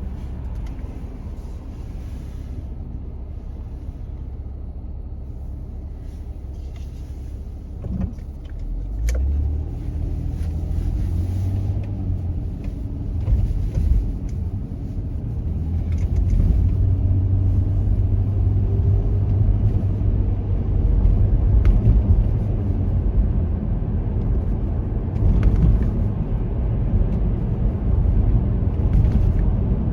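A car driving on city roads: a steady low rumble of tyres and engine that grows louder about eight seconds in, with a few faint clicks.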